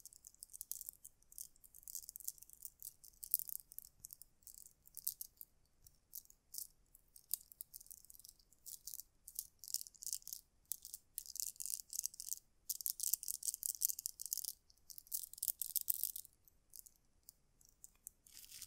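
Beaded bracelets being handled between the fingers, the round beads clicking against each other in quick, irregular runs of light, high-pitched clicks. The clicking is thickest a little past the middle and thins out near the end.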